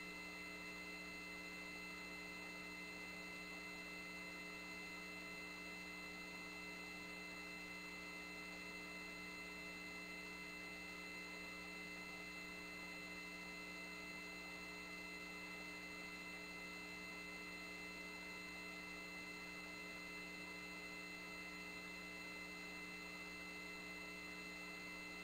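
Faint, steady electrical hum made of several unchanging tones over a light hiss: the background noise of an open launch-control communications line with no one talking.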